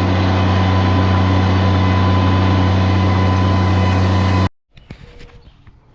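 A heavy engine running at a steady speed, a loud low hum that starts sharply and cuts off abruptly about four and a half seconds in.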